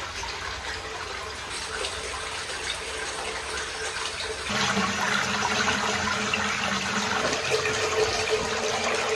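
Water running steadily, like a tap or spout pouring into a tub, growing louder about four and a half seconds in.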